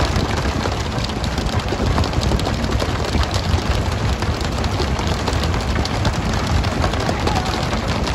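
Steady hiss and splash of water spray over churned sea at the stern of a pole-and-line tuna boat, with many small knocks and slaps of skipjack tuna landing and flapping on the deck, over a low rumble.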